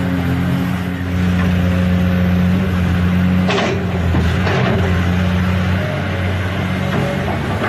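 Toy excavator's motor running steadily, its pitch shifting a few times, with two short rattles a little past the middle.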